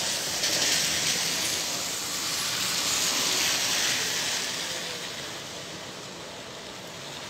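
Heavy rain pouring down in a thunderstorm downpour, a steady rushing hiss that eases off after about four seconds.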